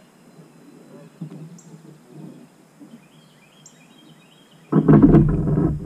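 Quiet river air with a few faint bird chirps. About five seconds in, a sudden loud rattling clatter starts: a YakGadget manual anchor pole being worked in its mount on the kayak. With its metal sleeve removed, the pole is still really noisy.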